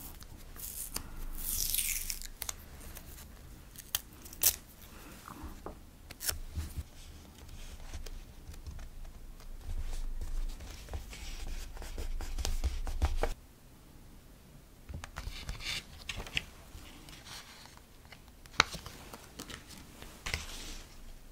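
Washi tape pulled off its roll and torn, with a longer hiss of tearing about a second in, then a paper sticker peeled and laid down with tweezers. Scattered light clicks, taps and paper rustles, with two more short tearing hisses in the second half.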